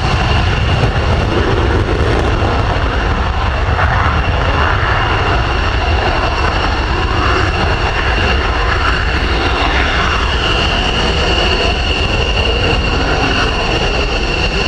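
F-16 fighter jets' Pratt & Whitney F100 turbofans at full afterburner for takeoff. They give a loud, steady jet rumble with a high whine held over it throughout.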